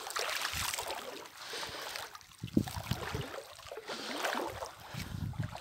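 Water hissing and trickling where a cast net has just landed in a pond, then sloshing, with dull knocks of handling close by and one sharp knock about halfway through.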